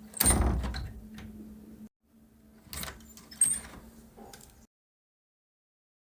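Door sound effects: a door shutting with a loud thud just after the start, then a second door recording with sharp latch-like clicks about three seconds in, followed by silence.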